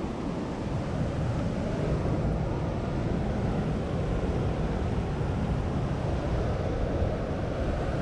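Wind buffeting the microphone over the steady rush of ocean surf.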